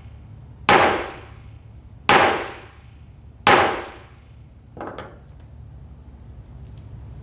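Wooden mallet striking a small upright metal piece on a table three times, about a second and a half apart, each blow sharp with a short ring. Lighter knocks and clicks follow about five seconds in.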